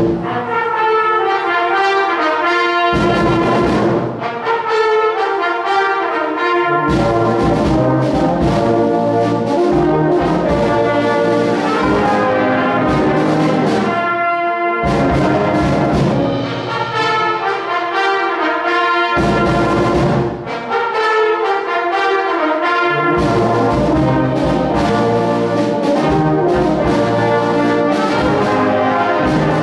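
Brass band playing with a drum set, starting abruptly at full volume. Several loud accented full-band hits with drums punctuate the music.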